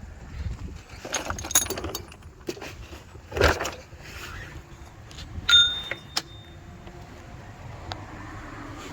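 Metal hand tools being handled: a string of clinks and clanks, with one sharp clank about five and a half seconds in that rings briefly.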